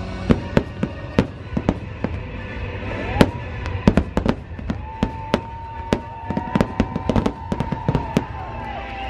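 Fireworks show: a rapid run of sharp bangs from exploding shells, several a second, over a low rumble. From about three seconds in, held tones sound over the bangs.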